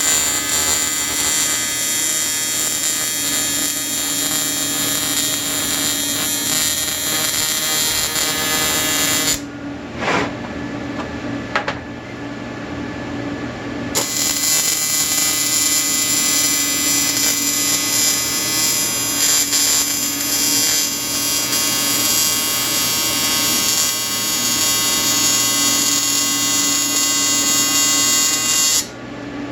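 Welding arc buzzing steadily through two long welds, the first stopping about a third of the way in and the second starting about halfway through. A few short clicks fall in the pause between them.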